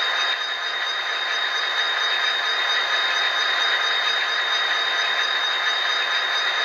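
Tsunami sound decoder in an HO-scale Athearn GP49 model locomotive playing the idle of an EMD diesel prime mover, a steady engine hum through the model's small onboard speaker. A thin high whine runs steadily over it.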